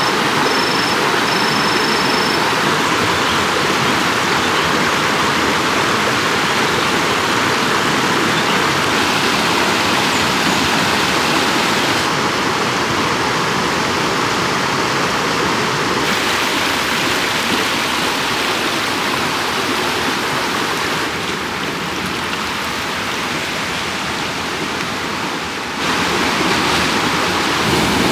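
Rushing river water, a loud steady hiss that shifts slightly in level a few times.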